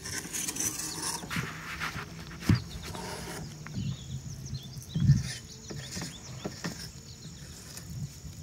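Insects chirping steadily in the background of an outdoor yard, with a low steady hum during the first few seconds and a couple of soft low thumps, the loudest about five seconds in.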